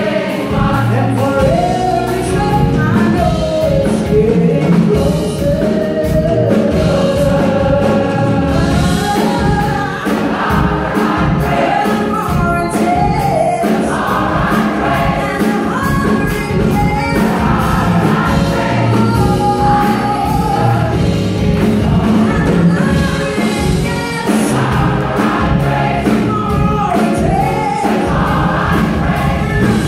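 Large gospel choir singing with a live band of drum kit, electric bass and keyboard, the drums keeping a steady beat under the voices.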